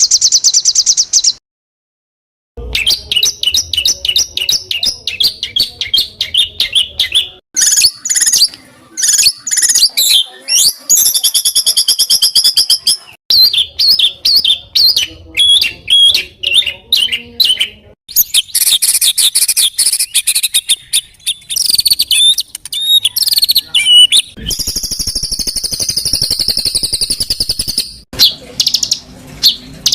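Recorded songbird song compiled as a masteran training track: a rapid string of loud, high-pitched whistled trills, chirps and sweeping phrases, spliced together with abrupt changes from one phrase type to the next and one brief cut to silence about two seconds in.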